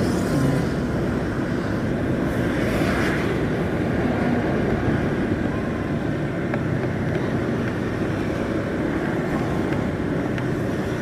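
Steady rush of road and wind noise with engine hum from a vehicle travelling along a town highway, briefly louder about three seconds in.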